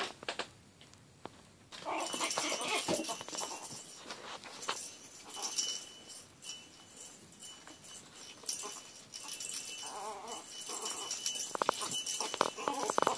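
A tiny puppy playing with a lattice toy ball that has a bell inside: the bell jingles off and on as the ball is pushed and rolled about, with light knocks of the ball. A few small puppy sounds come near the end.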